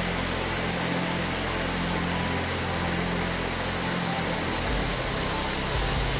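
Steady rush of falling water from Iruppu Falls on the Lakshmana Tirtha river.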